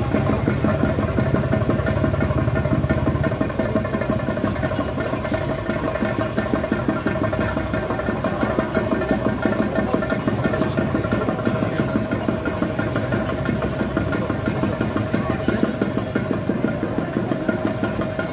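Chenda drums playing a fast, unbroken roll, with a steady held note above the drumming. Sharp, bright clashes repeat from about four seconds in.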